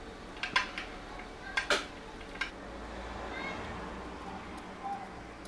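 A handful of light, sharp clicks and taps from a plastic syringe being handled in and against a small glass vial at the watch bench. The loudest tap comes about a second and three-quarters in, and one small tick follows near the end.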